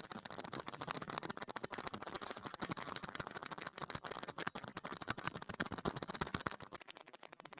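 Rapid, irregular clicking, many small sharp clicks a second, thinning slightly near the end.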